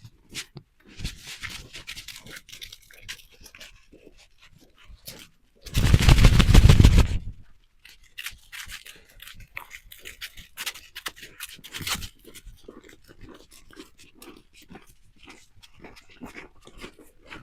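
Footsteps crunching in snow, with a loud rough rustling burst lasting about a second and a half, some six seconds in.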